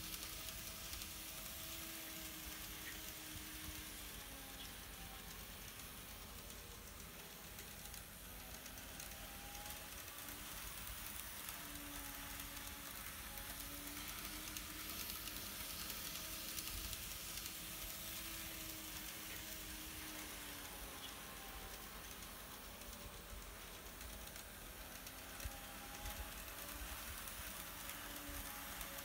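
N-gauge Hankyu 9300 series model train running on the track loop: a faint motor whine that slowly rises and falls in pitch as it goes round, over a light hiss.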